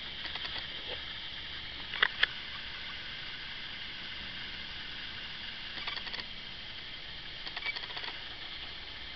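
Steady hiss with several short clusters of small clicks and scratches. The loudest is a pair of sharp clicks about two seconds in.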